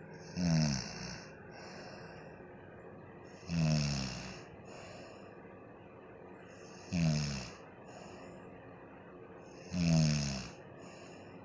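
An elderly woman snoring in her sleep: four loud snores about three seconds apart, each dropping in pitch, with quieter breathing in between.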